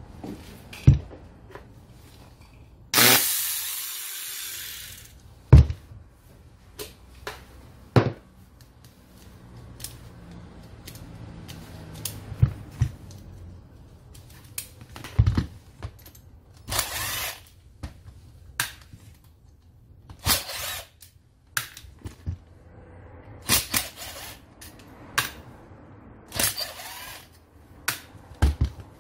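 Keyang ACT-100SN 4-inch angle grinder switched on about three seconds in, running for about two seconds and fading as it winds down. Then clicks and knocks of the tool being handled, and three short bursts of a cordless driver.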